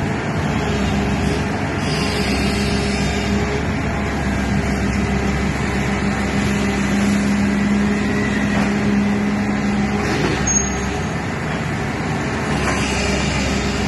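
Excavator's diesel engine running steadily with a constant hum, which swells from about six to ten seconds in as the machine works the rotating clamp attachment.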